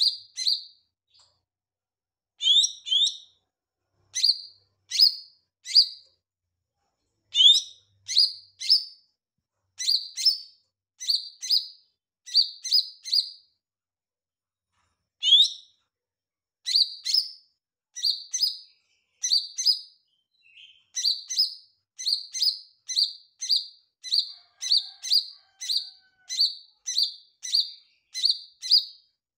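Caged male green leafbird (cucak ijo mini) singing: short, clear, high whistled notes with quick upward sweeps, delivered in pairs and triplets about once a second, with a short pause about halfway through.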